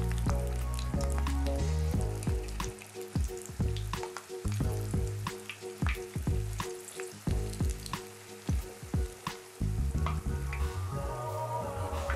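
Dough fat cakes deep-frying in hot oil: a steady sizzle with many sharp crackles and pops. Low background music with held notes plays underneath.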